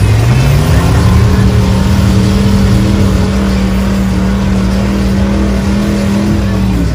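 Mud truck's engine revving up within the first second and held at high revs for about six seconds while its wheels churn through deep mud, then dropping off near the end.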